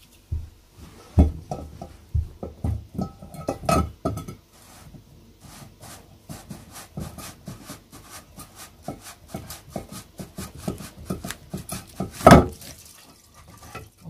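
Irregular clattering and knocking as an enamel bowl and a plastic water filter housing are handled under a sink, with one loud knock near the end.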